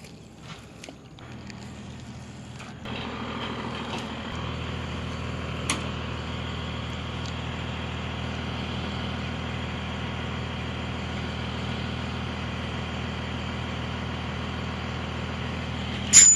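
A motor engine at a nearby boat launch comes in about a second in, grows louder over the next few seconds, then runs steadily as a low drone. Right at the end there is a sharp, brief noise, louder than the engine.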